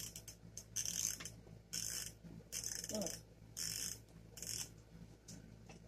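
A cold steam iron's plastic controls being worked by hand while trying to turn it on: six short rasping, ratcheting strokes about a second apart.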